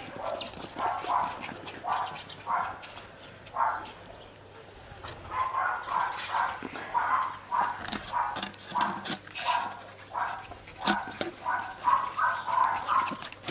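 West Highland White Terrier barking in short, high yaps: a few spaced barks, a brief pause about four seconds in, then a fast, continuous run of barks.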